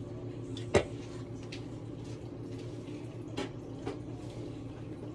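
Steady low hum with a faint hiss, broken by a few sharp clicks and knocks; the loudest comes about three-quarters of a second in, with smaller ones later.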